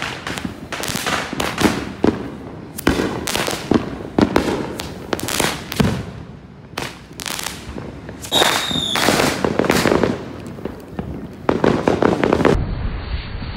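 Fireworks going off in quick succession: a steady string of sharp bangs and crackles, with a short high whistle about two-thirds of the way through.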